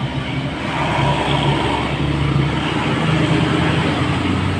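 Bus engine running steadily amid road and traffic noise, with no horn sounding.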